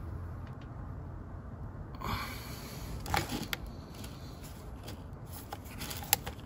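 Hands handling a car's wiring harness: rustling and a few sharp clicks as the wires are pulled apart and checked, over a low steady background hum.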